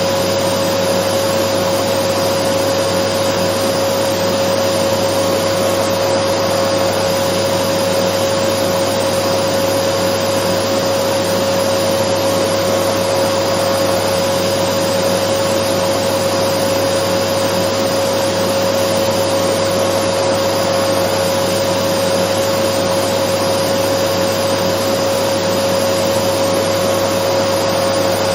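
Dyson vacuum cleaner running continuously at a steady speed: an even rushing hiss with a steady mid-pitched whine on top, unchanging throughout.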